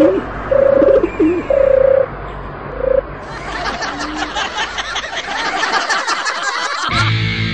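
Cartoon sound effects: a few short steady beeps, then a dense chattering of many birdlike chirps and twitters that stops abruptly near the end.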